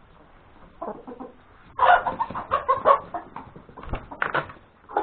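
A flock of chickens clucking in short bursts of calls, starting about a second in and busiest in the middle.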